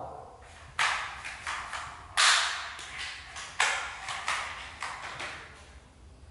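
A series of irregular, sharp knocks and slaps, about a dozen, the loudest about two seconds in, each ringing briefly off the tiled room's hard walls and floor.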